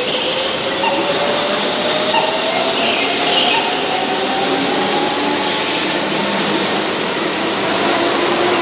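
Keihan Electric Railway electric train pulling away from the platform and gathering speed, a rising traction-motor whine over a steady rush of wheel and air noise.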